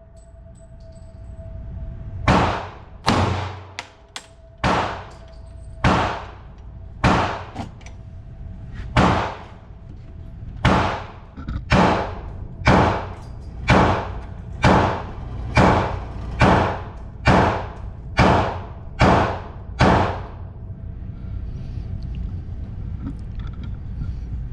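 Glock pistol firing a string of about seventeen shots at targets, at roughly one shot a second and a little faster toward the end, then stopping.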